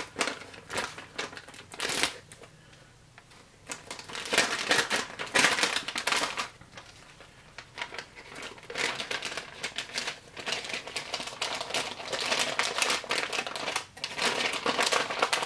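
Plastic and foil MRE ration packaging crinkling and crackling as it is handled, in irregular bursts with a couple of quieter pauses.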